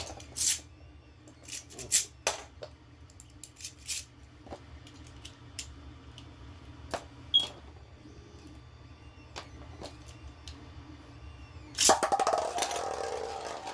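Small plastic clicks and taps as Beyblades are fitted to their launchers. About twelve seconds in comes the fast ratcheting zip of a ripcord launch, then the whirring of spinning tops in the stadium.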